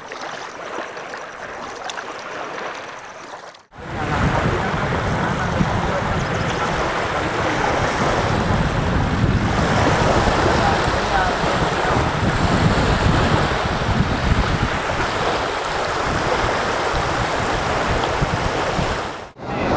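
Small waves lapping and breaking on a reservoir shore, with wind buffeting the microphone. A quieter stretch of rippling water cuts off about four seconds in, and louder wave and wind noise follows.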